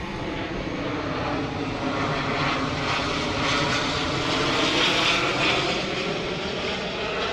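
Five-inch FPV freestyle quadcopter's brushless motors (iFlight Xing-E Pro 2306) and propellers whining under throttle as it dives along a building. The pitch wavers with the stick inputs, and the sound grows louder to about five seconds in, then eases.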